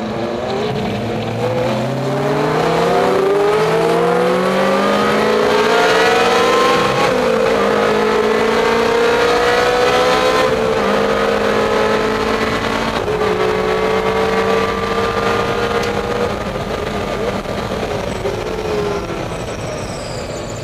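Ferrari Challenge race car's V8 engine, heard from inside the cockpit, accelerating hard with its pitch climbing over the first few seconds. It then runs on at high revs through a few gear changes and eases off near the end.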